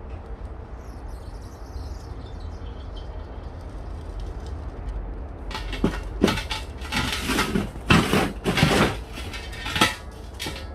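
Steel stove parts being handled and fitted: a run of loud metal clanks and scraping in the second half, over a steady low rumble.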